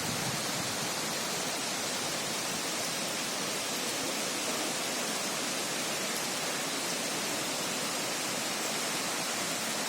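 Waterfall on a river: a steady, even rush of falling water.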